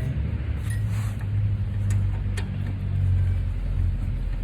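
A motor vehicle's engine running steadily with a low hum, swelling a little about two to three seconds in, with a few faint clicks over it.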